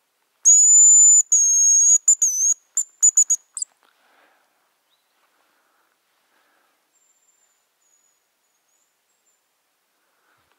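Hazel grouse decoy whistle blown close by, sounding the hazel grouse call: two long, very high thin whistles, then a quick run of short trilled notes, all over in about three seconds. Several seconds later, a faint high thin whistle.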